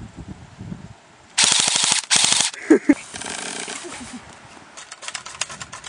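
Rapid full-auto gunfire: a loud burst starting about a second and a half in, broken by a brief pause just after two seconds, then quieter rapid firing that keeps on to the end.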